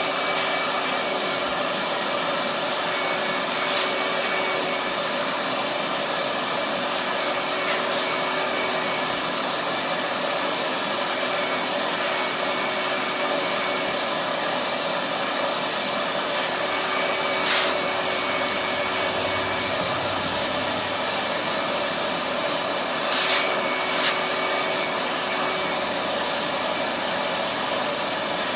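Shop vac running steadily at full speed after spinning up just before, sucking sanding dust off an orbital sander's pad, with a few short clicks as the nozzle and brush knock against it.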